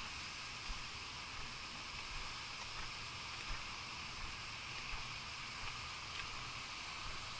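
Steady outdoor background hiss with a low rumble and a few faint, irregular knocks.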